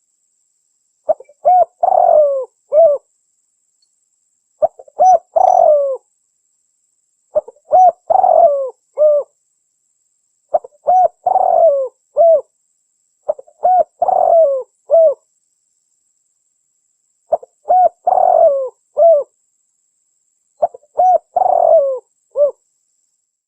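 Spotted dove cooing: a phrase of short notes leading into a longer coo, repeated about every three seconds, seven times. It is the female's call used as a lure to draw males.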